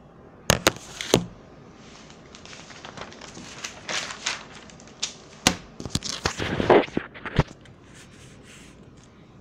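Paper rustling and crinkling from a spiral notebook being handled and turned to a fresh blank page, with several sharp knocks and clicks from the camera being handled.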